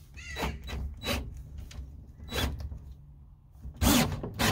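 Cordless drill with a socket bit running a nut onto a threaded gate-hinge bolt in about four short trigger bursts, the last one near the end the loudest.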